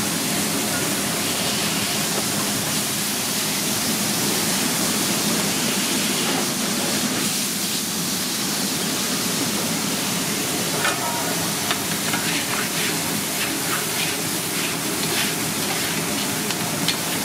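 Beef burger patties sizzling on a flat-top griddle: a steady hiss, with sharp crackling pops from about two-thirds of the way in.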